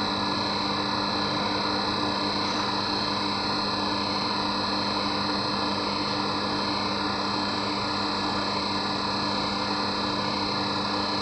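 A machine running steadily: an even hum with a constant high whine, unchanging throughout.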